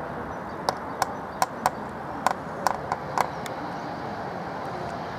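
Passing electric train: a steady rumble with a string of about nine sharp, irregularly spaced clicks in the first three and a half seconds, as wheels run over rail joints.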